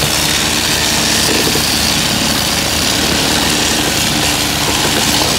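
Several handheld ballast tampers running together, vibrating stone ballast down under concrete sleepers, over the steady running of the small engine that powers them. A continuous, even mechanical hum and buzz.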